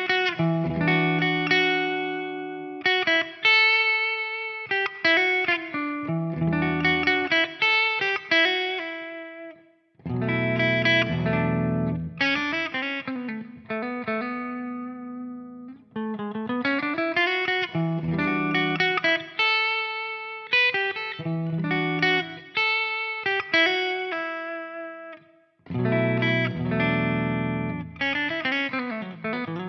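Epiphone 1959 ES-355 semi-hollow electric guitar with Gibson CustomBucker humbucking pickups, played as melodic single-note phrases over chords, with notes that slide and bend up in pitch. The playing breaks into three phrases, with short pauses about ten and twenty-five seconds in.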